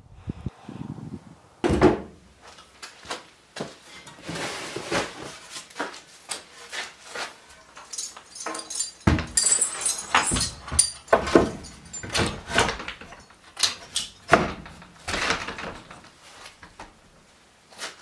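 A door being worked open and shut: a string of knocks and latch rattles, with one heavy thud about halfway through.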